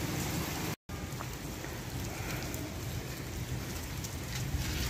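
Steady rain falling, an even hiss of rain on surfaces, that drops out for an instant about a second in.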